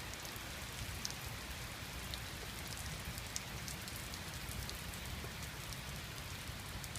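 Steady rain coming down hard outdoors, a continuous hiss with many individual drops ticking.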